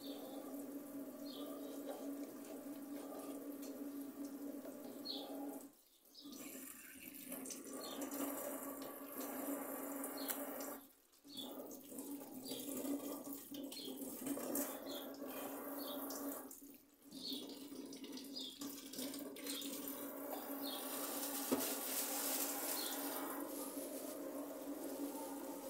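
Kitchen tap running steadily into a sink, the flow dropping away briefly three times.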